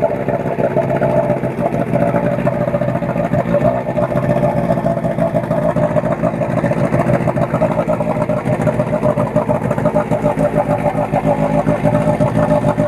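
Johnson 8 hp outboard motor running at a steady speed, its lower unit in a tub of water, burning off the Seafoam fuel treatment that has just been added.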